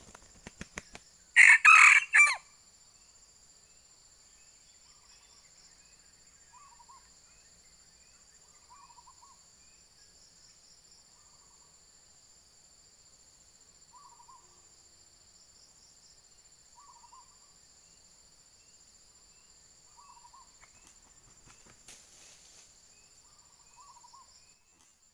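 Red junglefowl rooster crowing once, a short loud broken crow about a second and a half in, followed by soft clucks every few seconds. A steady high insect drone runs underneath.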